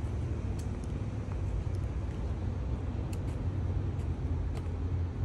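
Steady low rumble of outdoor road traffic, with a few faint clicks.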